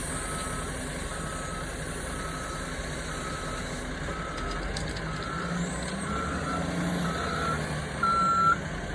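Backup alarm on heavy construction equipment beeping steadily, about one beep a second, with a diesel engine running underneath; the last beep near the end is clearly louder.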